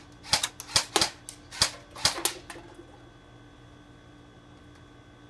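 Airsoft gun firing a quick, uneven series of sharp cracks, about seven in the first two and a half seconds, followed by quiet.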